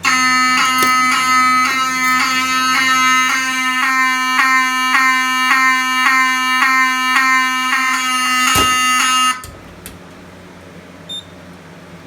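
Fire alarm horn, the Pyrotronics 7001T, sounding a loud buzzing tone that pulses about one and a half times a second. A sharp click comes just before the horn cuts off suddenly about nine seconds in, as the alarm is silenced.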